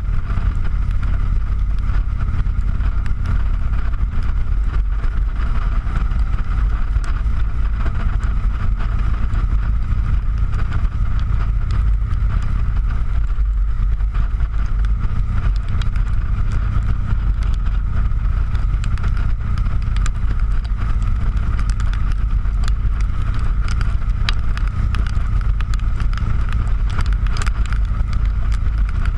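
Motorcycle riding at steady cruising speed: wind rushing over the bike-mounted camera's microphone, with the engine running evenly beneath it.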